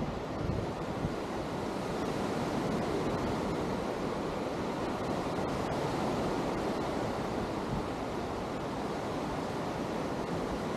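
Atlantic surf washing onto a sandy beach: a steady rush of breaking waves that swells a little in the middle, with wind buffeting the microphone.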